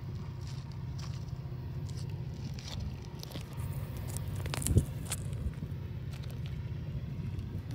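Wind rumbling and buffeting on a handheld camera's microphone, with light handling noise and a sharp knock just under five seconds in.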